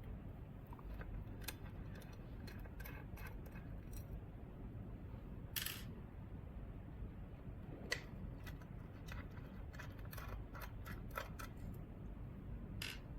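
Scattered small clicks and taps of a small device being handled and taken apart by hand, with a short scrape about five and a half seconds in and a sharper click near eight seconds, over a low steady hum.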